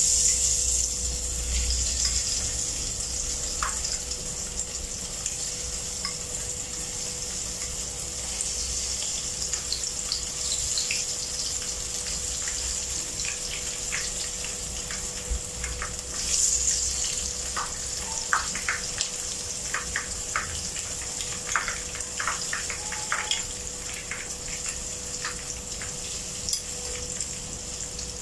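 Egg-battered eggplant pieces frying in hot oil in a wok: a steady sizzling hiss with many small crackles and pops, which grow more frequent about halfway through.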